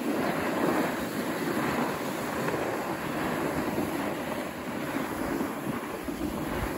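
Steady hiss of sliding over groomed snow as the camera follows downhill, mixed with wind rushing on the microphone.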